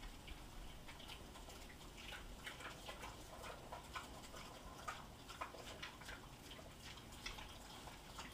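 Two pigs eating from metal bowls: faint, irregular clicks and smacks of chewing and of snouts nudging the bowls, a few each second.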